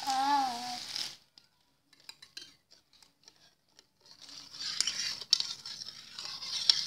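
A metal spoon stirring liquid in a stainless-steel pot: scattered clinks against the pot, then from about four seconds in a fast, steady swishing and scraping of brisk stirring. A short pitched, voice-like sound at the very start.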